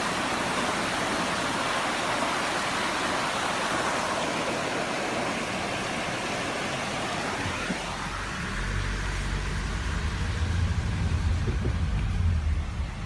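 A steady rush of a mountain stream heard from a moving car, giving way about eight seconds in to the car's low engine and road rumble, which grows louder toward the end.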